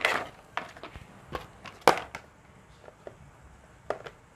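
A white plastic top plate being fitted onto a hollow plastic toy cart: several sharp plastic knocks and clicks, the loudest one about two seconds in.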